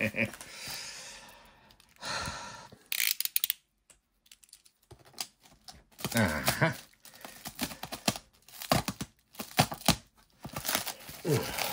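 Black plastic wrapping and eBay packing tape on a parcel being cut and torn open, with irregular crinkling and scraping of the plastic in short bursts.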